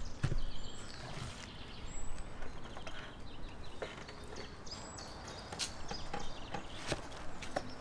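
Kitchen knife cutting into a frozen salmon, with scattered sharp clicks and knocks as the blade and the hard fish meet the plastic-covered table.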